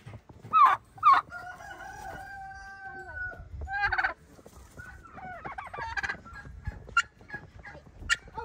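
Domestic turkeys calling: two loud, sharp yelps just after the start, followed by a long drawn-out call and then scattered shorter calls.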